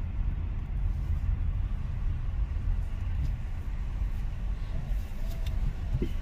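Outdoor background rumble, low and fluctuating, with no single event standing out.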